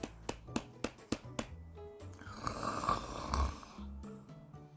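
A quick run of about six knocks on a door, then one long snore from a sleeping bear, a sound effect over soft background music.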